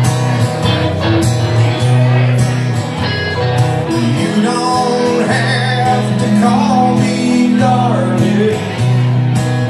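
Live country song on an electric guitar and an acoustic-electric guitar played through a PA, with a man's singing voice coming in over the guitars about halfway through.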